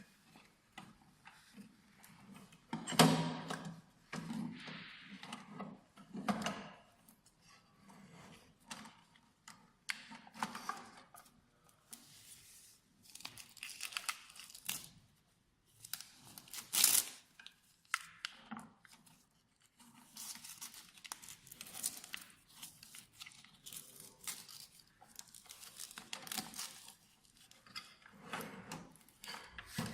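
Packaging being torn and crinkled in irregular bursts of handling noise. The loudest tears come about three seconds in and again around seventeen seconds.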